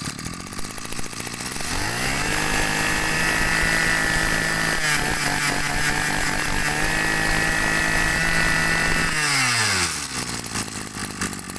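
Maruyama brush cutter's small two-stroke engine idling, then revved up by the throttle to a steady high speed about two seconds in, dipping briefly in the middle, and held high again before dropping back to idle near the end.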